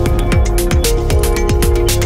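Electronic background music with a fast, steady kick-drum beat and held synth notes.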